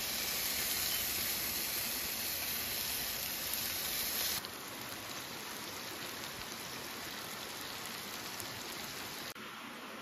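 Eel pieces sizzling on a grill pan over a portable butane stove, a steady hiss that drops abruptly in level about four seconds in and again near the end.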